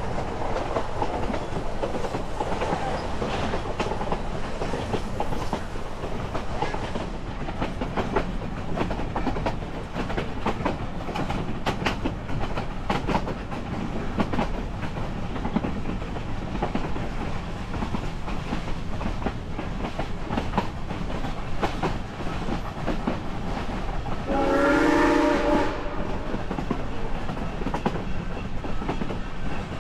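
Narrow-gauge passenger coach rolling behind a steam locomotive: a steady rumble with wheels clicking over the rail joints. About three-quarters of the way through, the locomotive's steam whistle blows once for about a second and a half.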